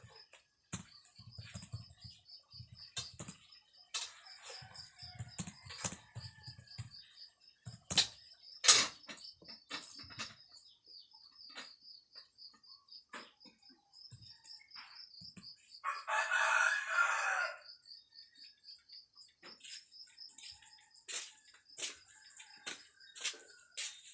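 Irregular clicking of computer keyboard keys being typed, the sharpest click about nine seconds in. Under it runs a steady, rapidly pulsing high-pitched chirping, and a rooster crows once, about sixteen seconds in, for a second and a half.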